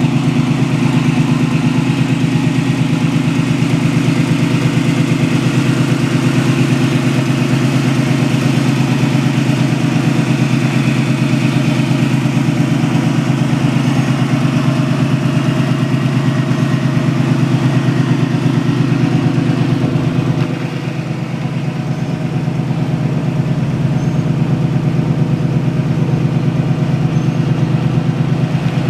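Chevrolet 350 small-block V8 crate engine idling steadily with a rapid even pulse, dipping briefly in level about two-thirds of the way through.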